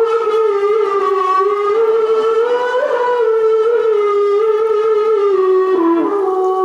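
A Qur'an reciter's voice holding one long, high, wavering note in an ornamented tilawah line, sung at the third (high) pitch level, sliding a little lower near the end.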